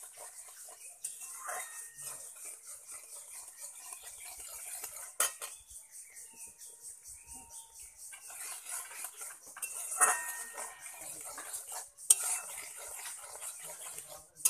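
Metal spatula stirring and scraping around a metal kadai of reducing egg-and-milk mixture, in quick continuous strokes with a few sharper clanks against the pan, over a steady hiss. The stirring is kept up without pause as the milk thickens.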